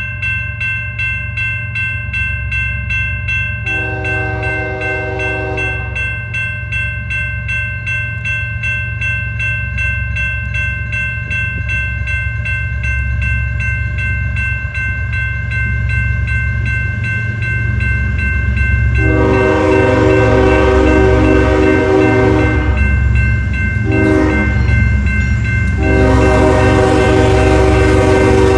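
Air horn on CN ES44DC locomotive 2267 sounding for a grade crossing: one blast, then after a long pause a long blast, a short one and another long one, while the diesel rumble of the approaching locomotives grows louder. A grade-crossing bell rings steadily throughout.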